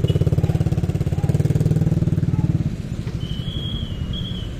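Motorcycle engine running with a fast throbbing exhaust note, easing off and going quieter a little under three seconds in. A thin high tone sounds twice near the end.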